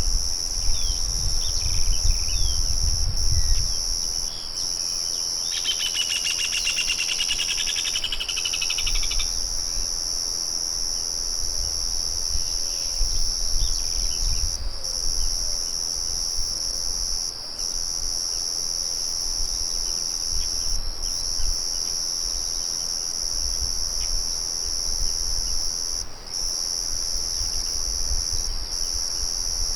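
Crickets trilling in a continuous high chorus that breaks off briefly now and then. A bird sings a rapid chattering phrase about six to nine seconds in, with a few scattered chirps elsewhere.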